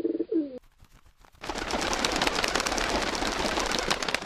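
A pigeon coos briefly. After a short pause comes a dense, rapid clatter of wingbeats as several pigeons take off together and fly off.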